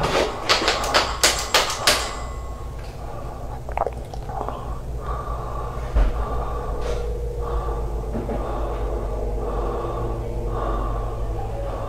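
Horror film sound design: a quick run of sharp knocks in the first two seconds, then a low steady drone with a single short hit about six seconds in.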